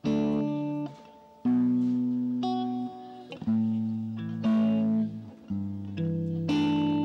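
Solo guitar playing a slow chord introduction: single chords struck about once a second, each left to ring and fade before the next.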